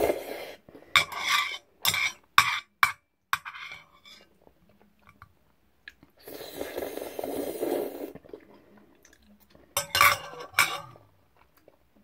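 Eating sounds from a bowl of jjajang ramen: chopsticks or utensils clicking sharply against the bowl several times in the first few seconds, a noisy stretch of about two seconds in the middle, and more clatter and chewing near the end.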